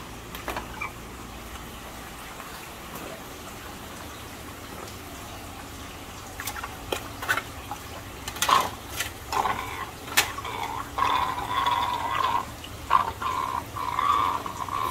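Aquarium water pouring and splashing unevenly from about halfway through, as fry are moved with their water into a grow-out tank. A few sharp knocks come just before it, over a steady low hum.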